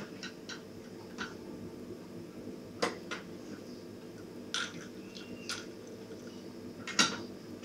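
Metal teaspoon stirring a glass of drink with ice cubes, giving scattered clinks against the glass, with two louder clinks about three and seven seconds in.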